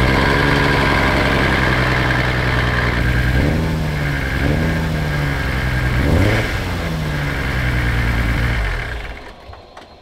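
Toyota Chaser JZX100's 1JZ-GTE turbocharged straight-six running just after starting, revved in a few short blips, then switched off near the end. It still makes the same odd sound that new spark plugs have not cured, which to the owner sounds like an exhaust leak, though none was found; a misfire is suspected.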